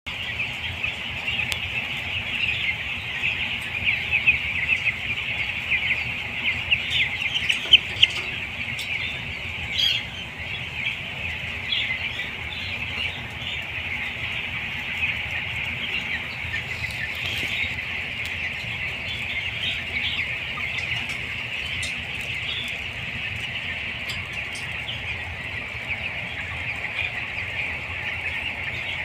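A large flock of 13-day-old chicks peeping together: a dense, unbroken chorus of high chirps, a little louder in the first third, over a low steady hum.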